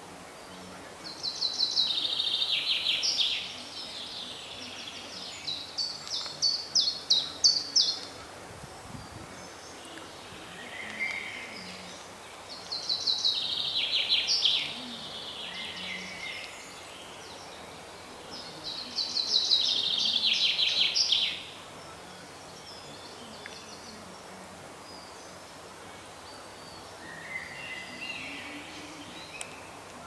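Chaffinch singing: a short phrase of rapid notes falling in pitch, about two seconds long, repeated four times at intervals of roughly six seconds. Softer chirps come in between, over a steady background hiss.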